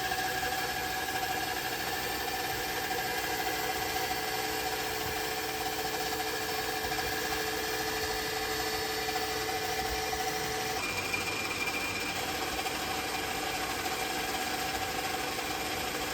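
Workshop machine motor running steadily, a constant hum made of several steady tones over a noisy whirr. About eleven seconds in, the mix of tones shifts, as when the machine's speed or load changes.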